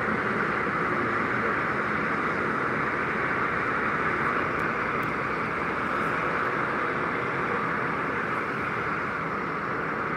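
Steady outdoor city background noise at night: a constant hiss with a faint low hum underneath and no distinct events.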